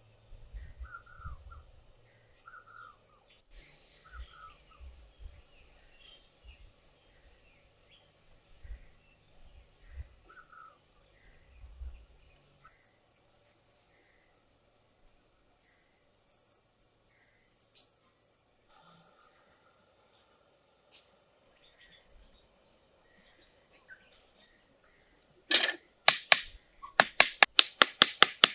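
Steady high chorus of crickets with occasional faint short chirps. Near the end, a run of sharp, loud knocks begins, about three a second: a tool striking wood.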